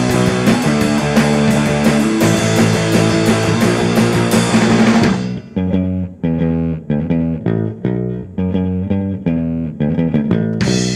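Rock music with guitar, bass and drums. About halfway through the high end drops away, leaving short, stopped guitar and bass chords on a beat, and the full band comes back in near the end.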